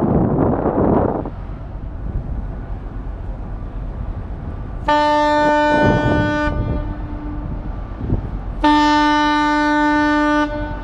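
Ship's horn sounding two steady blasts, each under two seconds long, about two seconds apart, with wind buffeting the microphone at the start.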